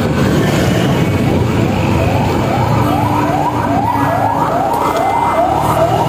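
Wind rushing over the camera microphone and the running engine of a Honda Click 125i single-cylinder scooter on the move. From about a second and a half in, a siren yelps: a rising wail repeated a little more than twice a second.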